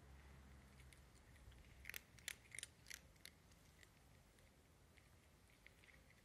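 A cat crunching dry kibble: a quick run of sharp crunches about two to three seconds in, then only a few faint ones.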